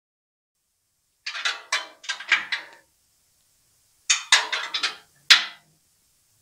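Socket ratchet clicking in two quick spells while tightening the nuts on a catalytic converter's bottom exhaust flange, followed by a single sharp metallic knock about five seconds in.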